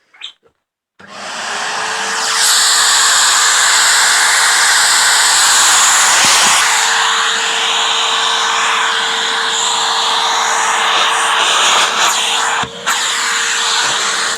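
Numatic Henry cylinder vacuum cleaner switched on about a second in, its motor spinning up over a second or so and then running loud and steady with a constant hum. There is a brief knock and dip near the end.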